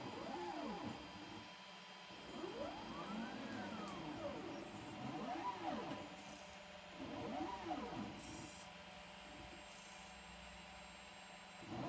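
Niryo One six-axis robotic arm's joint stepper motors whining as the arm moves. Each move makes a tone that rises and then falls in pitch as the joint speeds up and slows down. There are about four moves, the longest and highest about three seconds in.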